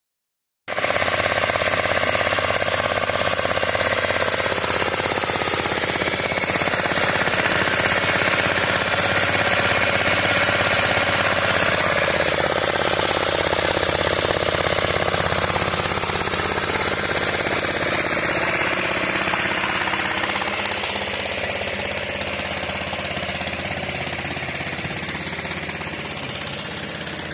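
Kisankraft petrol engine on a single-bucket milking machine running steadily and loudly, driving the vacuum pump. It starts abruptly about a second in and grows slightly quieter over the last few seconds.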